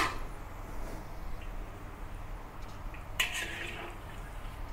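Sweet potato balls deep-frying gently in oil at a low temperature of about 130 °C in a wok, a faint steady sizzle. There is a sharp click right at the start, and about three seconds in a perforated metal skimmer scrapes briefly against the wok.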